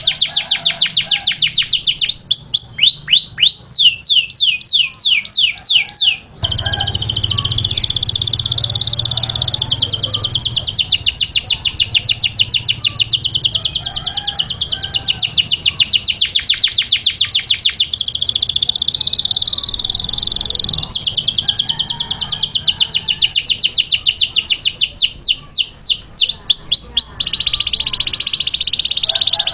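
Domestic canary singing a continuous song of fast repeated trilled notes. Twice it breaks into runs of falling whistled notes, the first in the opening seconds and the second near the end.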